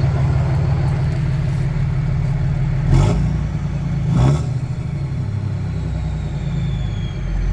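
5.9 Cummins turbo-diesel engine running steadily, with two brief loud surges about three and four seconds in. Near the end a faint high whistle falls in pitch as the 64mm turbo spools down.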